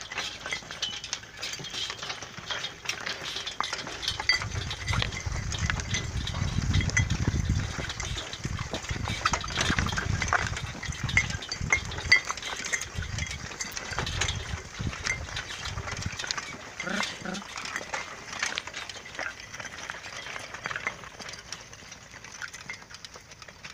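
Horse-drawn tool carrier with finger weeders rattling and clinking as it is pulled over stony soil, its metal frame and chains jingling in a dense run of small clicks. A low rumble joins in through the middle.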